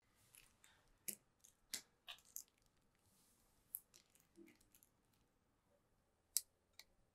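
Faint crinkling and light clicking of aluminium foil as dough-wrapped foil tubes are handled and set down on a cutting board, in a few scattered short ticks, with one sharper click near the end.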